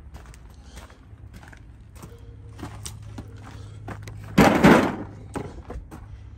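Footsteps on gravel, with a low steady hum underneath. About four and a half seconds in comes a single loud thud lasting about half a second.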